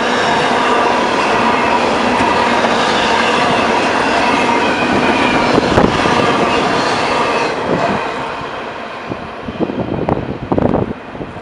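A train passing close by: steady rumble and rail noise from its cars, with high ringing wheel-squeal tones over it. The noise dies away about eight seconds in, and uneven gusty bursts follow.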